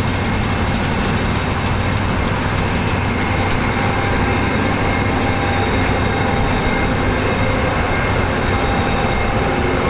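New Holland CR11 combine harvester running steadily under load, with a deep engine drone, a continuous rush of threshing machinery and a faint steady whine.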